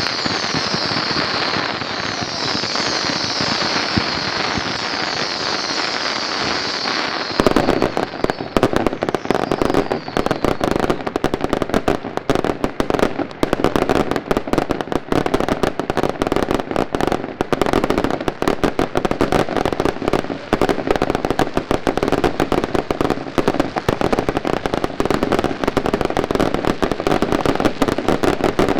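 Daylight fireworks going off. For the first seven seconds there is a steady hiss with high, falling whistles, then a sudden switch to a dense, rapid crackle of bangs like firecracker strings, which keeps on.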